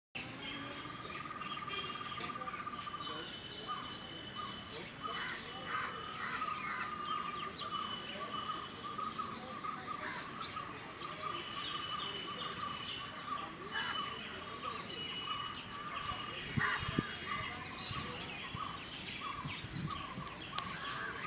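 Outdoor ambience full of birdsong: many birds chirping and calling at once, with short whistled phrases, over a steady high tone that runs underneath.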